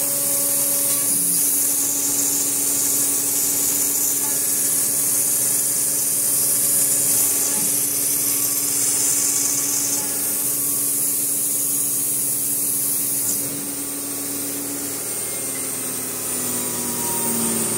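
CNC router spindle running and cutting a part, a steady mechanical whine of several held tones over a steady hiss. It eases a little about two-thirds through, and one tone slides down near the end.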